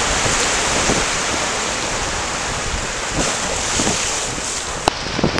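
Sea surf breaking and washing over rocks in a steady rush, with wind buffeting the microphone; a single sharp click near the end.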